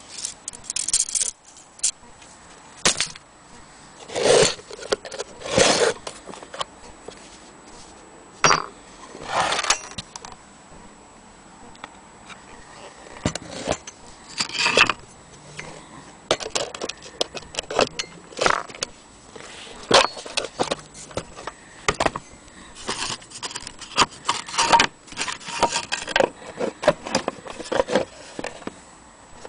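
Small hard, metal-sounding objects being handled: irregular clinks, rattles and short scrapes, some single sharp clicks, with a few louder rattling bursts.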